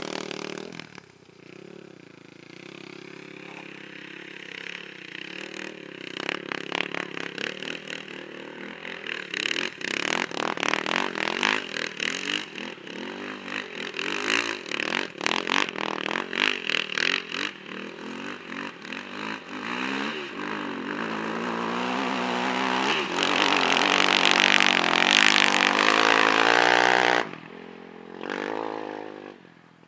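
Sport ATV engine revving up and down as the quad rides across sand, its pitch rising and falling with the throttle. It grows steadily louder as it nears, then cuts off suddenly near the end.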